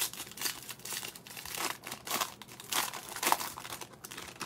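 Foil wrapper of a 2020 Bowman Draft jumbo trading-card pack being torn open and peeled back, crinkling in a run of irregular bursts.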